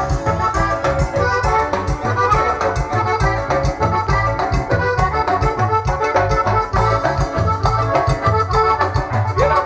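Dance music from a band, with a keyboard playing an organ- or accordion-like melody over a steady pulsing bass beat.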